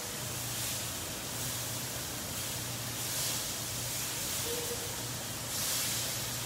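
Burger patties sizzling in a stainless steel frying pan as they are pressed with a spatula. The sizzle is steady and swells every second or so.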